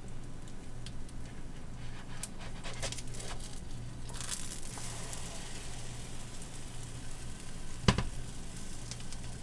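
Pancake frying in a greased pan on the stove, a steady sizzle with scattered small crackles over a low steady hum. A sharp knock about eight seconds in is the loudest sound.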